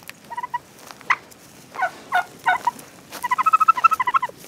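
Domestic tom turkeys gobbling: a few short gobbles, then a longer, rapid rattling gobble about three seconds in.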